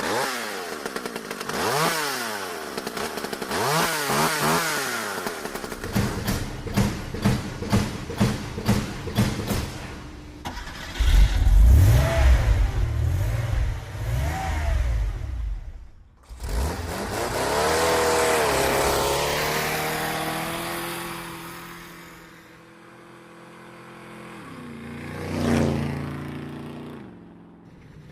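A sequence of engine sound effects: motors revving, their pitch sweeping up and down, with a loud low rumble in the middle and a long rise and fall in pitch like a vehicle passing by.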